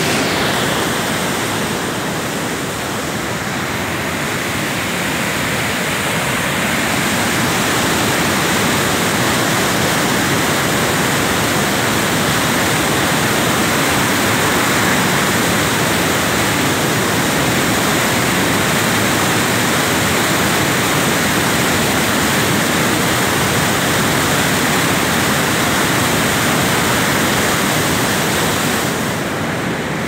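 Steady rush of white water pouring through a waterfall's cascades, a little louder after the first few seconds.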